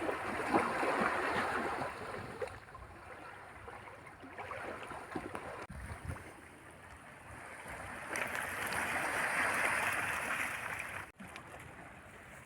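Small sea waves washing onto the beach: a noisy wash that swells near the start and again for a few seconds later on.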